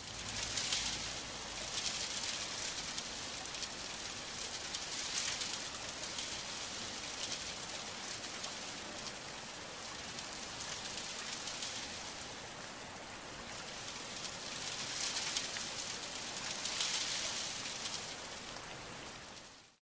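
Steady rain falling, a dense hiss of drops that swells and eases several times.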